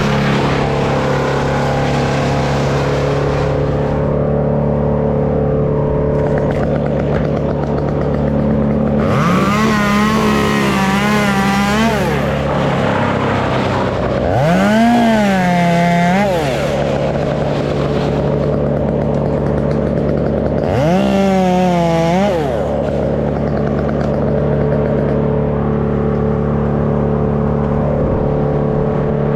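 Stihl MS 201 two-stroke top-handle chainsaw revved up to full throttle three times, each burst holding high and wavering for a second or three before dropping back, over a steady engine hum.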